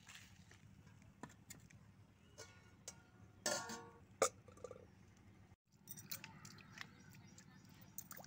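A stainless steel plate clattering and ringing briefly as it is set down on stone about three and a half seconds in, followed by a sharp knock, over faint scattered ticks and a low steady hum.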